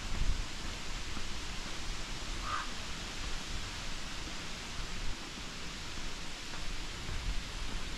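Outdoor ambience: a steady even hiss with an uneven low rumble, and one short bird call about two and a half seconds in.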